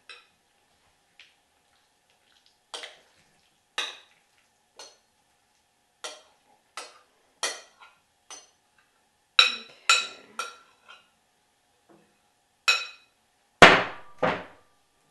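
A spoon knocking and scraping against a glass mixing bowl as thick quiche filling is scooped out into a pie crust: a string of irregular clinks with a short ring, the two loudest knocks near the end.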